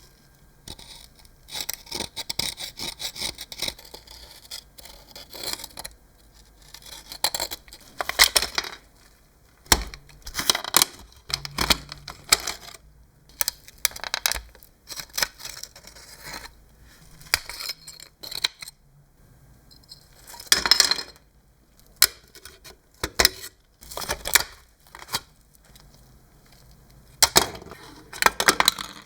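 Hand work on a car: irregular scraping and tearing strokes mixed with clinks and knocks of tools and metal parts, with a faint steady low hum underneath.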